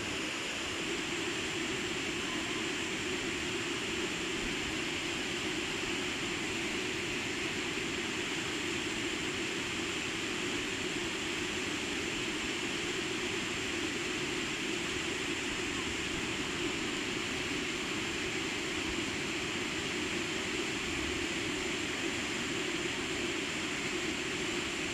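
Steady rush of a waterfall, an even noise with no breaks.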